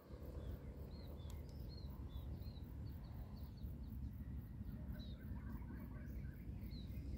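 Small birds calling, short arching chirps repeated several times a second for the first few seconds, then softer twittering, over a faint steady low rumble of outdoor noise.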